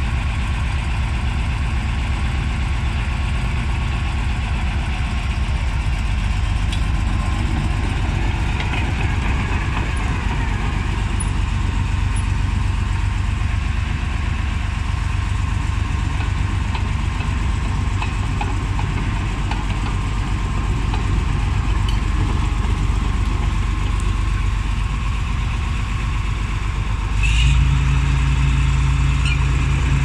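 Fiat-Allis AD 14 C crawler bulldozer's diesel engine idling steadily, then revving up and running louder near the end.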